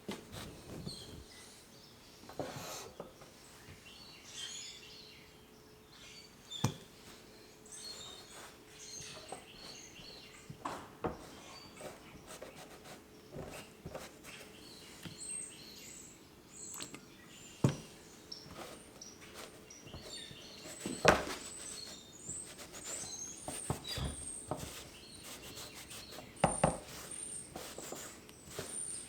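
A few sharp knocks at uneven intervals, the loudest about two-thirds of the way through, over birds chirping in the background and a faint steady hum.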